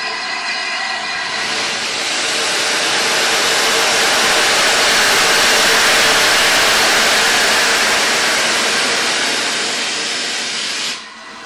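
Train hauled by the LNER A3 steam locomotive 60103 Flying Scotsman on the move: a loud, steady rushing noise that swells to a peak about halfway through, eases off, then drops away abruptly near the end.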